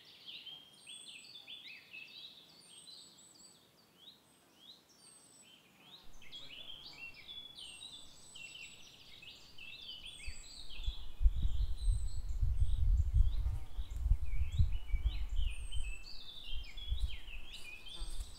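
Wild birds singing in woodland: varied warbled phrases, with one short high falling note repeated about once a second. From about ten seconds in, an uneven low rumble comes in under the birdsong and becomes the loudest sound.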